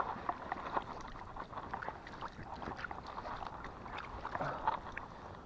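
Rustling of a nylon jacket and bankside grass as a person moves, with many small scattered crackles and ticks.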